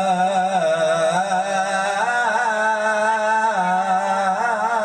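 A young qari's solo voice chanting one long, unbroken melismatic line with wavering ornamental turns. It is the drawn-out close of the Arabic blessing on the Prophet and his companions ('wa ashabihi al-akhyar') that ends a Quran recitation.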